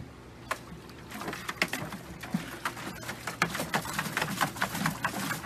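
Dog with its head down inside a plastic picnic cooler, eating or drinking from it: rapid, irregular mouth clicks that grow denser after about a second.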